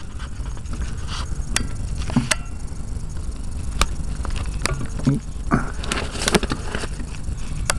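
Lever-action grease gun being pumped into the grease nipple of a variable pitch propeller hub, giving irregular metallic clicks and short squeaks of the lever, over a steady low rumble. This is the hub being filled with grease until it works out at the blade pivots.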